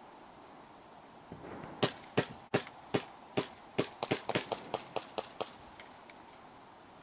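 Airsoft gun fired as a string of about twenty single shots over some four seconds, irregularly spaced and closest together in the middle, growing weaker toward the end.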